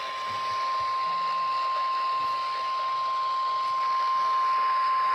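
NOAA Weather Radio 1050 Hz warning alarm tone: one steady, unbroken high tone held over radio static. It signals that a warning, here a severe thunderstorm warning, is about to be read.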